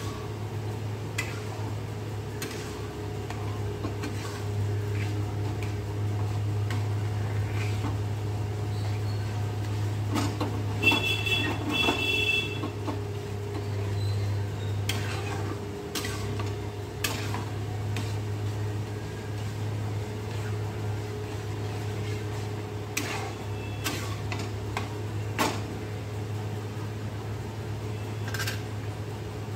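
Steel ladle stirring and scraping dal in an iron kadai, with scattered clicks of metal on metal, over a steady low hum. A short high two-note tone sounds about a third of the way in.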